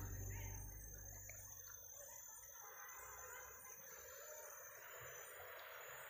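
Faint forest background noise, a soft even hiss that swells a little near the end. At the start, the tail of background music fades out within the first second.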